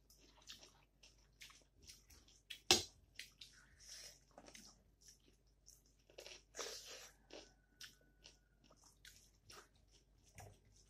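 Close-mic'd eating sounds of a person chewing rice, dal and curry eaten by hand: wet mouth smacks, small crunches and fingers squishing food on the plate, in many short clicks. One sharper click about three seconds in is the loudest.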